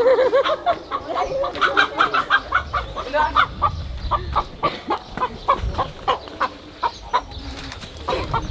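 Chicken squawking and clucking in alarm while it is chased. A loud squawk comes first, then a quick run of short clucks, several a second.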